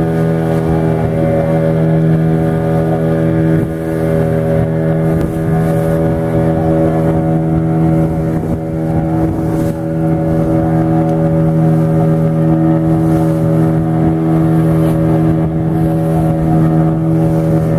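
A motorboat's engine running steadily under way, heard from on board: an even, unchanging drone with a fixed pitch.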